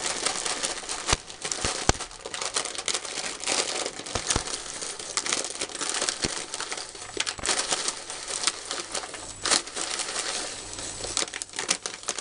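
Plastic packet of dried guinea pig herbs crinkling and rustling as it is shaken and handled to get the contents out, with a few sharp clicks in the first half.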